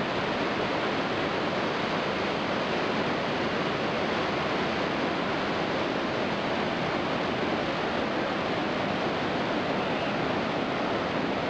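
Iguazu Falls: a steady, even rush of water pouring down the cascades.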